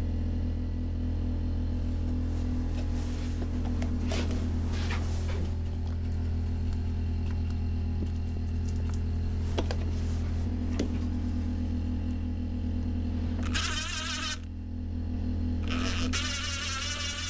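A steady low buzzing hum with a few light taps; near the end come two short bursts of a higher, wavering whirr.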